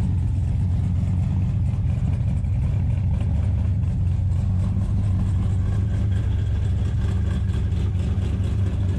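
1968 Dodge Charger R/T's 426 Hemi V8 idling steadily through its exhaust.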